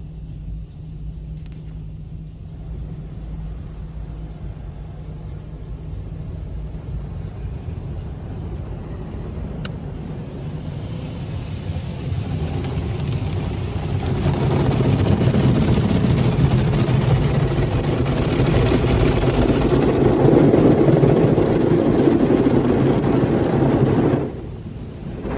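Automatic car wash spraying water onto the car, heard from inside the cabin as a steady rushing noise over a low hum. The spray grows louder from about halfway through and cuts off suddenly near the end.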